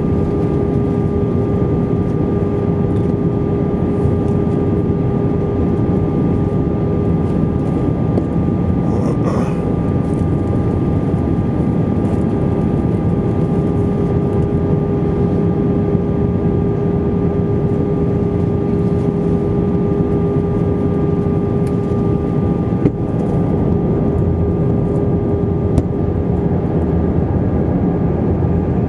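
Airbus A320 engine and airflow noise heard inside the cabin on approach: a steady rush with a constant whine of a few fixed tones on top.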